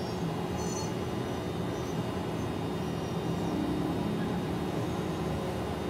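Steady low rumbling background noise with no breaks.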